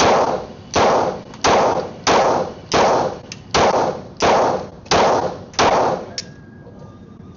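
Glock 23 Gen 3 pistol firing .40 S&W in a steady string of eight shots about 0.7 s apart, each with an echoing tail. The string stops about six seconds in.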